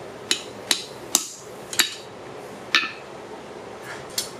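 Hand hammer striking a punch held in tongs against a railroad spike on a steel anvil: six sharp metallic blows at uneven intervals, each with a short ring.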